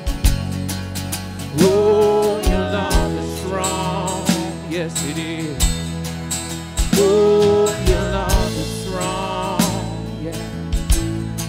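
Worship song: a singer's long, wavering sung phrases over a band with drums.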